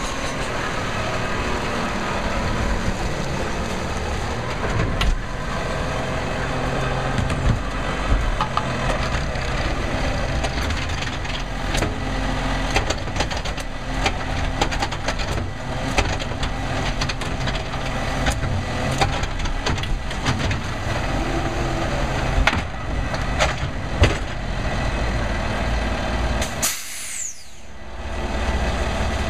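Automated side-loader recycling truck running its diesel engine while the lifting arm raises a cart and tips it into the hopper, with repeated knocks and clattering from the cart and the falling recyclables.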